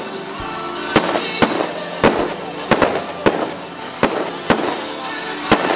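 Fireworks going off: about ten sharp bangs at uneven intervals, one or two a second, each followed by a short crackle.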